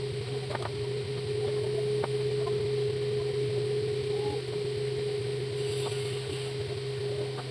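Electric table fan motor running with a steady hum, a few faint clicks over it.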